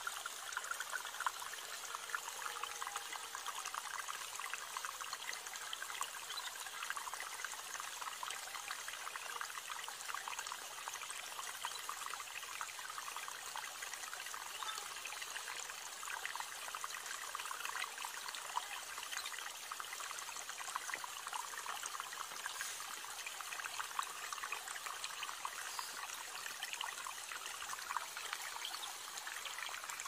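Running water trickling and splashing steadily, a continuous babble.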